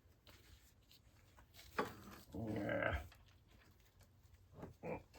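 A man's voice in short strained grunts and one drawn-out groan of effort, with a few faint knocks.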